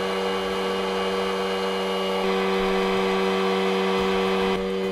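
Heat gun running steadily, its fan blowing hot air with a low motor hum, heating a CPU socket on a motherboard to reflow its solder. The sound grows a little louder and brighter about two seconds in and drops slightly near the end.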